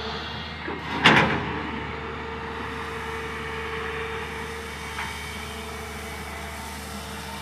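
Komatsu PC200 long-reach excavator's diesel engine running steadily with a hum. About a second in there is one loud rattling crunch of crushed stone as the bucket digs into the gravel pile.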